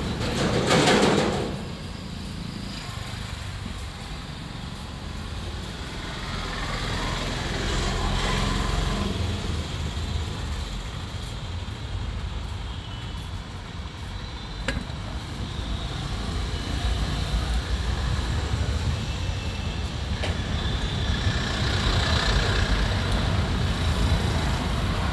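Steady rumble of road traffic, louder about a second in, with a few light metallic clicks from starter-motor parts being handled.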